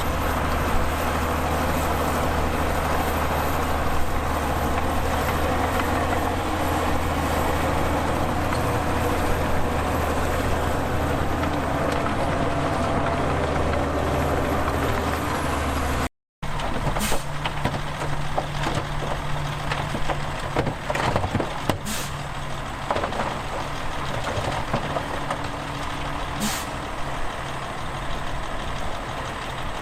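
Heavy diesel machinery running steadily with a deep, even drone. After a cut, a heavy diesel truck runs with three short, sharp air-brake hisses spread over the rest of the clip.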